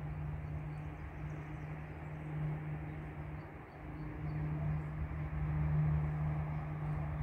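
Steady low engine hum over outdoor background noise, with a few faint high chirps about two seconds in.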